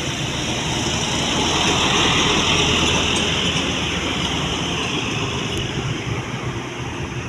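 A tour bus driving past close by, its engine running under a steady rush of tyre and road noise that is strongest a couple of seconds in and eases off towards the end.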